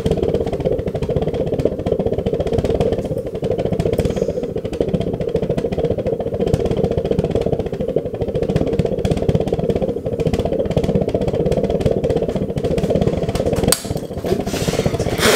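Homemade glass jam-jar pulse jet running with a steady, rapid pulsing buzz. Near the end a sharp crack as the glass jar breaks, and the buzz gives way to a hissing open flame.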